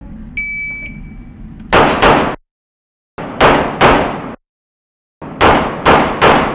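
An electronic shot-timer beep starts the stage, then a pistol fires seven shots: two quick pairs, then a burst of three. Each shot rings off the walls of the indoor range.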